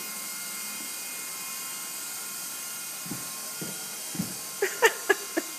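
Small electric RC helicopter (Double Horse 4-channel single-rotor) flying: a steady high-pitched motor whine with rotor buzz. A few soft low thuds come past the middle, then four sharp smacks in quick succession near the end.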